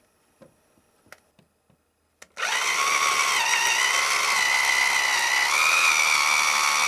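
A few faint ticks, then from about two seconds in an electric drill runs steadily with a homemade hole saw, a metal tube with teeth cut into its end, cutting around a nail in a pallet board. Its whine shifts slightly higher near the end and stops just before the end.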